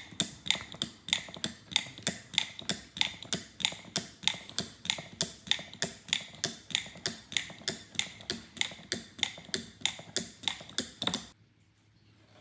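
Steady mechanical ticking, about three clicks a second with a faint metallic ring, that stops abruptly about eleven seconds in.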